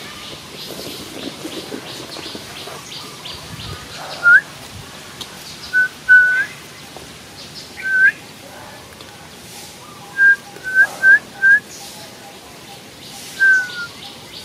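A bird calling in short, clear whistled notes, about nine of them, several flicking upward at the end, over insects chirping in a quick, even rhythm.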